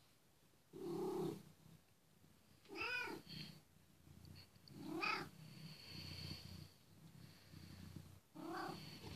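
Domestic cat meowing four times, each call rising and falling, with a low steady purr between the later calls while it is stroked.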